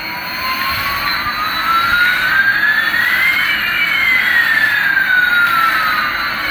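Jet-engine sound effect: a whine rising for about three and a half seconds, then falling again, over a steady rushing hiss.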